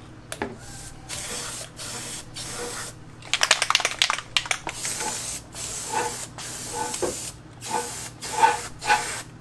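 Aerosol can of Rust-Oleum Universal black paint and primer spraying in a series of short hissing bursts with brief pauses between.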